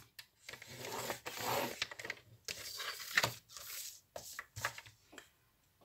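Red cardstock being turned, slid across a paper trimmer's base and scored with the trimmer's scoring blade: soft scraping strokes, with a sharper click about three seconds in and a few light clicks near the end.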